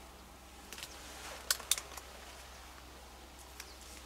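Break-action shotgun being opened: a few sharp metallic clicks, the loudest two close together about a second and a half in.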